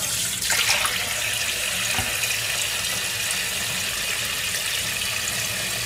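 Kitchen tap running steadily into a stainless steel bowl and sink while dishes are washed, with a couple of faint knocks.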